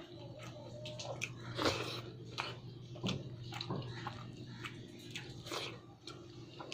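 Close-miked chewing and eating of pulao: irregular wet mouth smacks and clicks, a few each second, over a faint steady hum.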